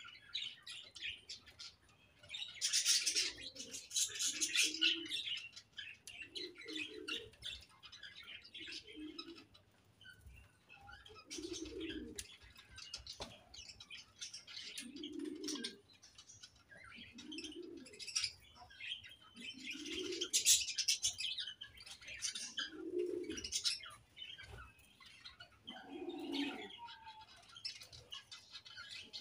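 A flock of budgerigars chirping and warbling, in bursts that are loudest about three seconds in and again around twenty seconds. Underneath, a low cooing call repeats every two to three seconds.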